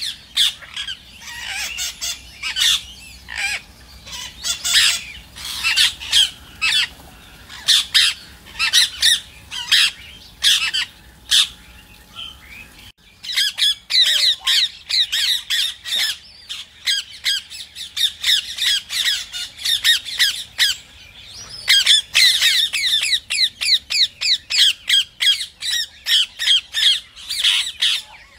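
Rose-ringed parakeet squawking: a long run of short, shrill calls, several a second, thickening into a rapid chatter in the second half.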